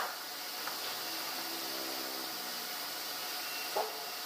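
Steady noise of sawmill machinery running, with a few short knocks of timber being handled: one at the start, a lighter one just under a second in, and a ringing one near the end.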